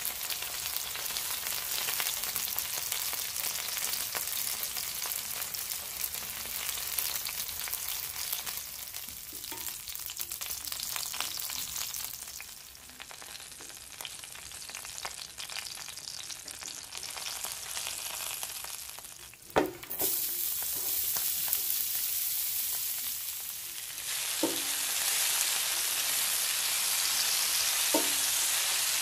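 Chicken-breast cubes sizzling in hot oil in a cast-iron skillet; the sizzle drops for a while midway as the pieces are lifted out with tongs. Two-thirds in there is a single sharp knock, then sliced onions sizzle louder in the oil as they are stirred with a spatula, with a couple of light clicks against the pan.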